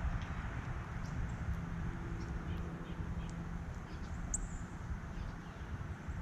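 Small songbirds chirping faintly, with one sharper high chirp about four seconds in, over a steady low outdoor rumble.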